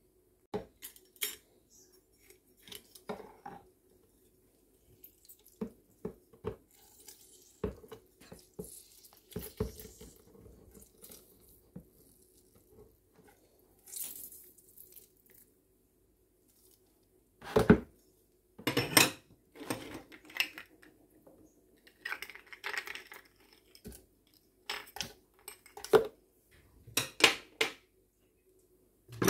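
Scattered clicks, knocks and clatters of hand food prep at a plastic blender jar: a metal hand-held lemon squeezer working, and ice cubes clattering into the jar. The loudest knocks come in clusters from about halfway on.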